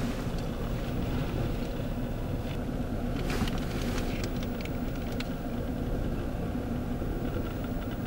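Blizzard wind blowing steadily, a low rush of wind over the microphone, with a few faint clicks.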